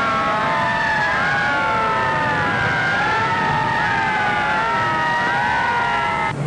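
Several fire engine sirens wailing at once, their overlapping pitches sliding slowly up and down. They cut off suddenly near the end.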